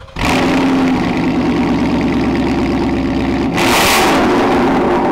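Ford Mustang GT's 5.0-litre V8 running through a Corsa Xtreme cat-back exhaust, held steady, then revved in one short blip about three and a half seconds in that drops back after about half a second.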